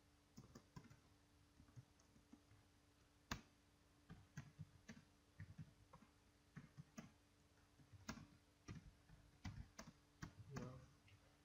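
Typing on a computer keyboard: irregular, faint key clicks in short runs with brief pauses between them.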